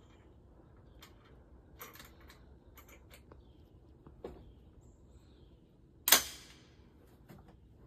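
Scattered faint clicks and knocks, then one sharp bang about six seconds in that rings briefly before dying away.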